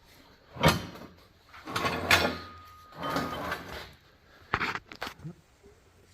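Metal handling noises of a wrench on the milling machine's knee: a sharp clank, then two longer scraping sounds, and a few quick clicks near the end.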